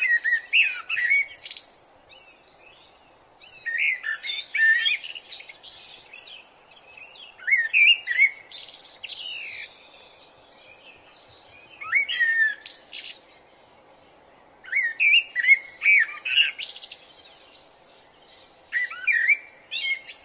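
A songbird singing short phrases of quick whistled, gliding notes, one phrase about every three to four seconds.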